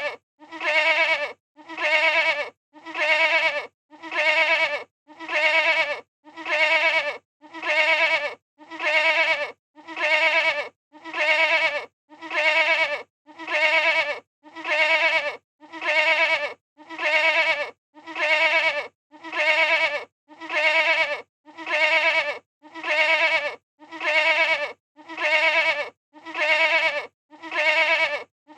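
Goat bleating: the same short, quavering baa repeated evenly about once a second, each call just under a second long with a brief gap between.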